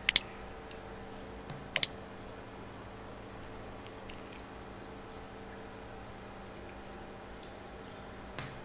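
Eggshells tapped against the rim of a metal bowl as eggs are cracked into it: sharp clicks, two together at the start, two more about two seconds in, and one more near the end.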